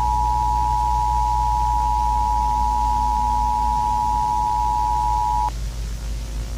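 Emergency Alert System attention signal: two steady tones sounding together as one continuous alarm, cutting off abruptly about five and a half seconds in. A low hum continues underneath.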